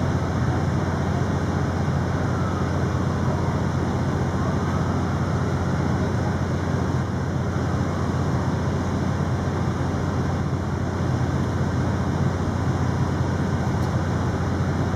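Steady low rumble of city street noise, with no distinct events.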